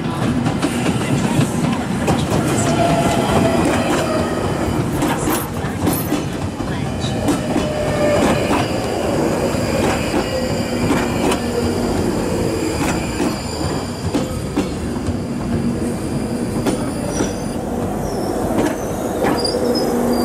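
London Underground Northern line tube train running along the platform, with the wheels clattering over the rails and squealing, over a low rumble and held whining tones.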